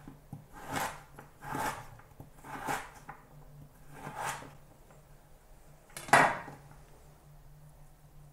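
Chef's knife slicing a carrot lengthwise into thin strips on a plastic cutting board: four soft cuts about a second apart, then a louder knock about six seconds in.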